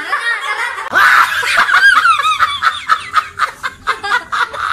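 Loud laughter: a high burst about a second in, breaking into quick repeated laughs.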